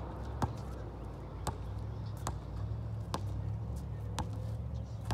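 A basketball being dribbled on an outdoor concrete court, six bounces at about one a second, over a steady low rumble.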